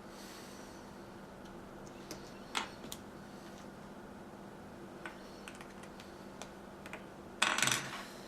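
Small plastic LEGO pieces clicking as they are handled and pressed together: scattered single clicks, then a short, dense clatter of clicks near the end that is the loudest sound.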